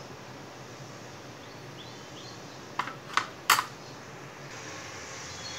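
A steel spoon clinking three times against a ceramic bowl of cardamom-sugar powder, quick sharp clicks about three seconds in, over quiet room noise.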